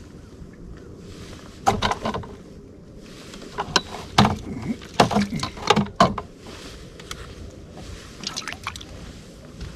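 Scattered knocks and clatters from handling in a fishing boat, with some water splashing, over a low steady background.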